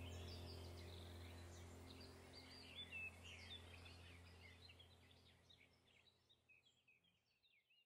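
Faint birdsong, many quick high chirps, over a low steady hum, the whole fading out gradually to silence by the end.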